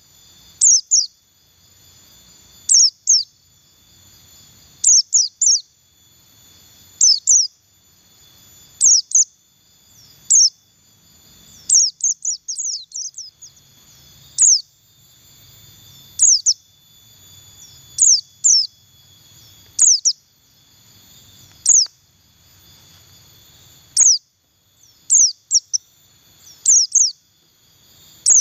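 White-eye of the buxtoni race (pleci buxtoni) giving its 'ngalas' call: quick clusters of two or three sharp, high, falling chirps about every two seconds, with a longer string of chirps around twelve seconds in. This is the call that keepers play as a lure to get white-eyes to open their beaks and sing.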